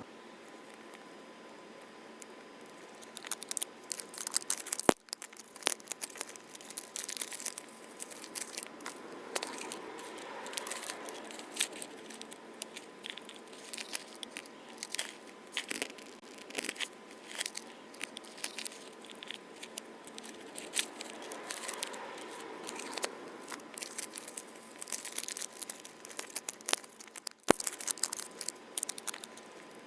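A surprise egg's wrapper being crinkled and torn open by hand, in irregular crackling rustles.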